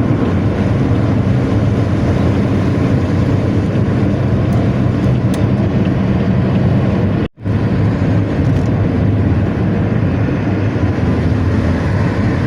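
Bus diesel engine running through a 'ngorok' (snoring) exhaust, a loud, steady, deep rumble, with a brief sudden gap in the sound about seven seconds in.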